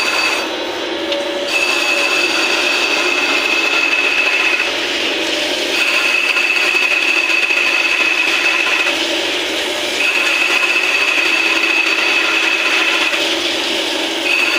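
CNC machine cutting SS316 stainless steel: a steady rasping cutting noise with a high whine that runs in stretches of about three seconds, dropping out briefly between them as the tool goes through repeated passes.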